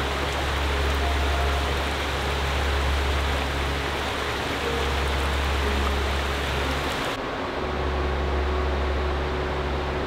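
Steady rushing of a mountain stream. About seven seconds in the sound changes abruptly and loses its highest hiss.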